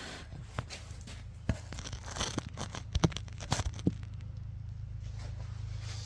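A cardboard shipping box being torn and pulled open: sharp knocks, scrapes and two short tearing rasps, bunched between about half a second and four seconds in, then it goes still.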